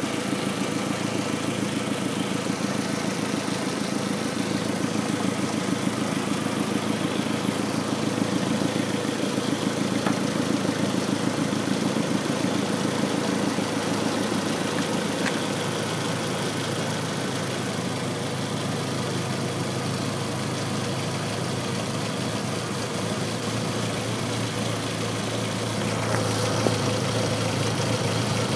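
Car engine idling roughly with a fast, uneven flutter. The rough idle is what the owner suspects comes from a fault in the secondary air injection (SAI) system.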